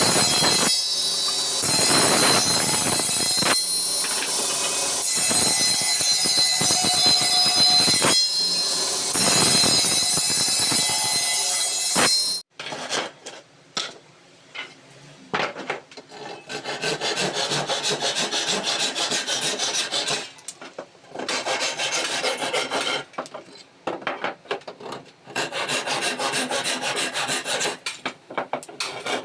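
Wood being worked with tools. For the first twelve seconds a loud power tool runs with a steady high whine. After an abrupt cut come repeated rubbing, rasping strokes across wood, each lasting a couple of seconds.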